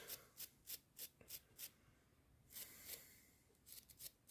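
Faint scratching of a small brush scrubbing gritty deposits off the parts of a strip-down spark plug. There is a run of about five quick strokes, a longer scrub in the middle, then a few quicker strokes near the end.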